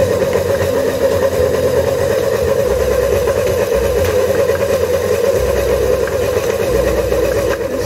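Kenwood Chef stand mixer's motor running steadily at low speed, its hook turning through bread dough with a constant hum.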